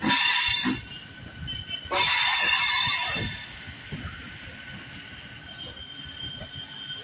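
MEMU train's wheels squealing against the rails on a sharp curve: two loud squeals, the second about two seconds in and lasting about a second, then quieter steady running with a faint whine.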